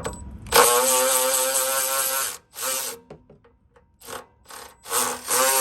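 Milwaukee 2567 high-speed 3/8-inch cordless ratchet running under the trigger, driving a 12mm socket. It makes a steady motor whine for about two seconds, then two short blips, then another run near the end.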